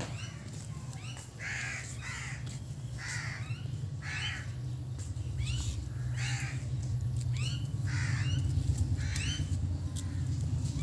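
Crows cawing repeatedly, about one call a second, over a low steady rumble that grows louder about halfway through.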